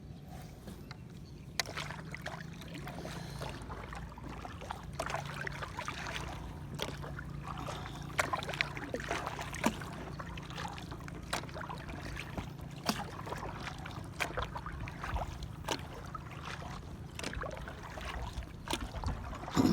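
Paddle working a small paddled boat through calm water: irregular dips, splashes and drips, with an occasional sharp click, over a steady low hum.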